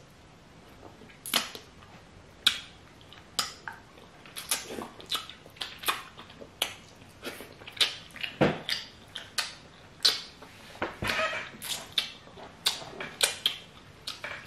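Loud, wet lip-smacking and open-mouth chewing of fufu with peanut soup: an irregular run of short, sharp smacks, a few a second, starting about a second in.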